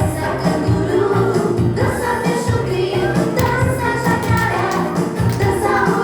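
Recorded song with singing voices over a steady beat, played as backing music for a children's dance performance.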